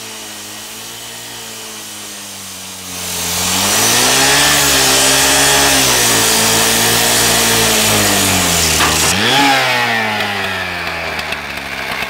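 Engine-driven rotary rescue saw with a metal-cutting blade grinding through a steel hockey-puck padlock. It runs steadily at first; about three seconds in it is throttled up to full speed and the hissing grind grows much louder. Near the end the engine pitch sags under load and recovers as the blade works through the lock.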